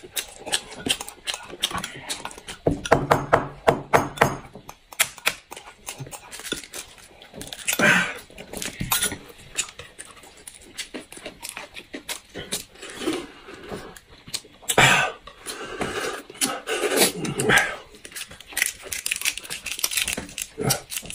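Close-up eating sounds: chewing, sucking and lip smacking on braised pork bones, with many small clicks and taps of chopsticks against bowls.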